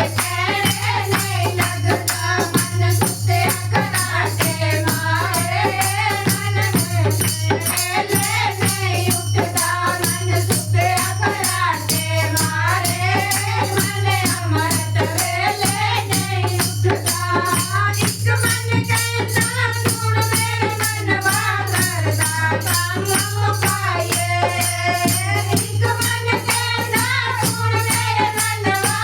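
Devotional bhajan: voices singing a melodic line over hand percussion keeping a steady, fast beat, with a steady low hum underneath.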